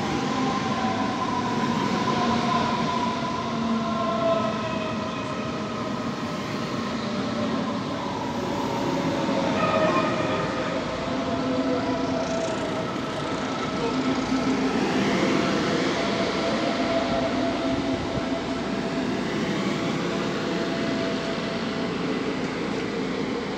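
Stuttgart S-Bahn electric multiple unit (class 423) moving through the station, its traction motors whining in several steady tones that slowly slide in pitch over the rumble of the wheels on the rails. About ten seconds in, a second set of higher whining tones joins.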